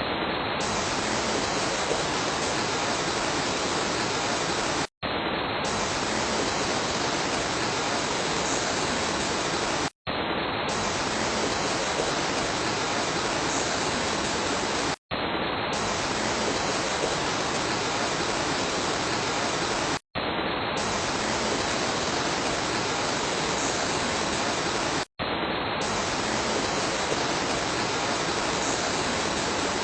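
Steady rain, a dense even hiss of water, that drops out for an instant about every five seconds.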